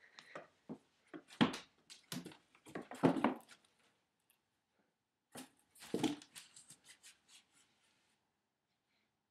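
A cat with cerebral hypoplasia, unable to balance, thumping and scrabbling its body and paws on a hardwood floor in irregular bursts of knocks and scuffs, which die away about eight seconds in.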